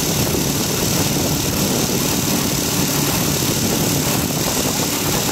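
Motorcycle engine running steadily while riding along a road, with wind noise rushing over the microphone.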